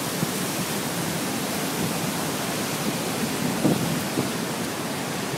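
Floodwater of the swollen Guadalentín river rushing at the dam: a steady, loud rush of water with no change in pitch. A couple of faint low knocks come about two-thirds of the way in.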